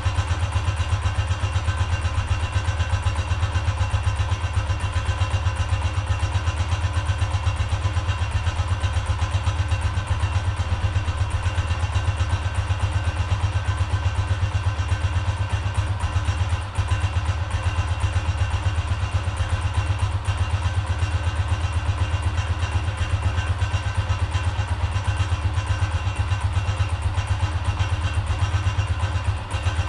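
Honda CGL 125's single-cylinder four-stroke engine idling steadily, with an even, fast exhaust beat.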